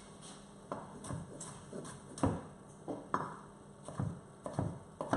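Kitchen knife slicing a beef tomato on a wooden chopping board, the blade knocking on the board in irregular single strokes, roughly one every half second to second.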